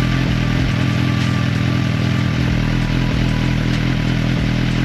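2022 Suzuki GSX-R1000R's inline-four engine idling steadily just after starting up, its first run with a freshly installed Dynojet Power Commander 5 fuel module.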